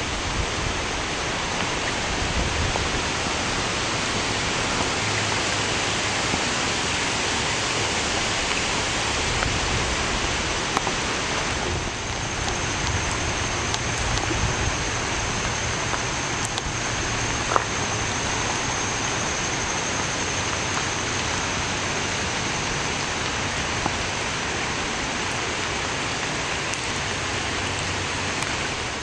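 Steady rushing hiss of rain and of Crabtree Creek's floodwater, the creek running far over its banks, with a few light ticks.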